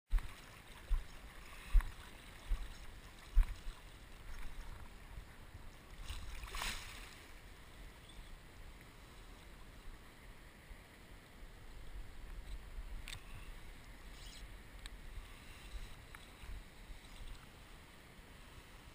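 Water sloshing and wind rumble picked up by a wading angler's action camera, with several low thumps in the first four seconds and a brief hiss about six and a half seconds in.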